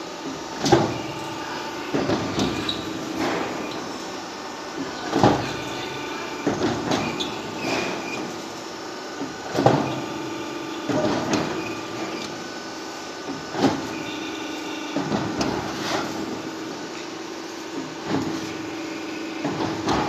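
Roof tile roll forming machine running with a steady hum, its tile press coming down on the moving sheet with a metallic clank every one to three seconds as it stamps the tile steps.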